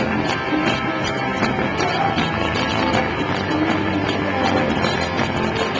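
Live rock band playing, with electric guitar and drums, heard through a small camcorder's built-in microphone.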